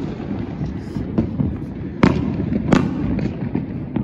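Fireworks bursting: a sharp bang about halfway through and another a moment later, with a few fainter pops over a steady low rumble.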